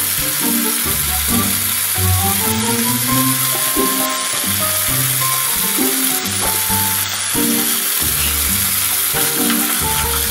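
Halved baby potatoes frying in oil and sauce in a pan, sizzling steadily, under background music.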